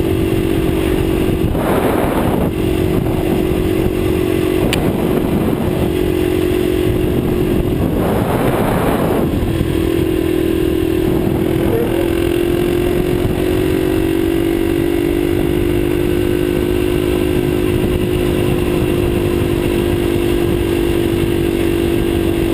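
Motorcycle engine running at a steady cruising speed, heard from the rider's seat over a constant rushing of wind and road noise. Its pitch dips slightly about ten seconds in and then holds steady, and two brief swells of rushing noise come through early and again about eight seconds in.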